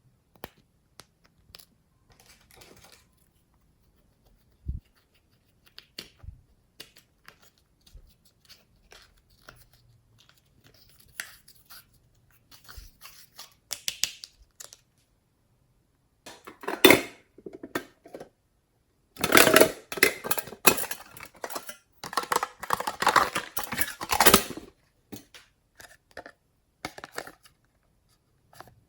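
Slime being worked by hand, giving scattered clicks and pops and bursts of crackling, crinkly noise, with the loudest stretch lasting about five seconds near the end.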